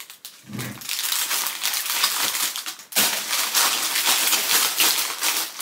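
Plastic packaging crinkling and rustling as it is handled, in two stretches with a short break about three seconds in.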